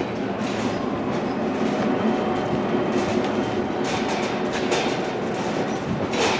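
Freight train moving during switching: a steady rumble of cars and wheels on the rails, with strong wind on the microphone.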